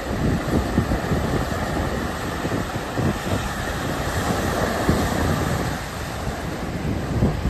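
Wind buffeting the microphone in uneven low gusts over the rushing noise of surf breaking on a rocky shore.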